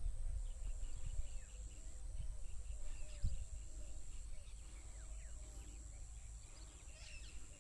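Several small birds chirping: many short, quick chirps overlapping with lower repeated calls, over a low rumble of wind on the microphone and a steady high whine.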